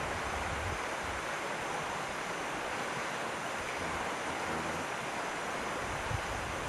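Steady rushing of a flowing river, with some low wind rumble on the microphone.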